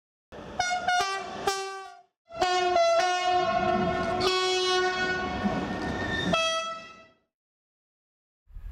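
Train horns: three short blasts about half a second in, then a long held blast of several seconds that changes tone twice before fading out. A train's low rumble starts right at the end.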